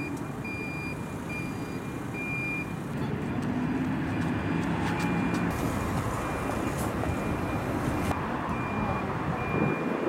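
Road traffic with a repeating high electronic warning beeper: short beeps at one steady pitch, clearest in the first couple of seconds, then fainter.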